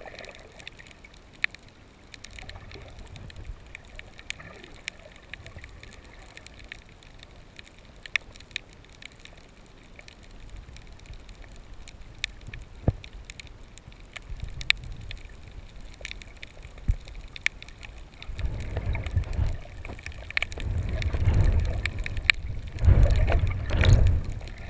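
Underwater sound as heard by a submerged camera: a low wash of moving water with scattered sharp clicks. In the last several seconds it builds into louder low rumbling surges of water against the camera as it swings through the water.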